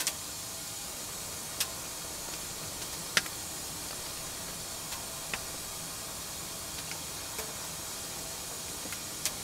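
A handful of sharp, widely spaced clinks of a fork against a cast iron skillet as food is eaten from it, over a steady low hiss.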